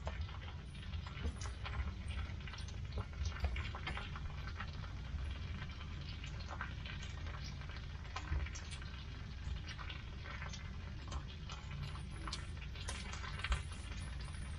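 Pooled grease sizzling on the hot steel floor of a Lang 84 Deluxe smoker's cooking chamber: a steady crackle of scattered small pops over a low rumble. The grease is heating toward a boil.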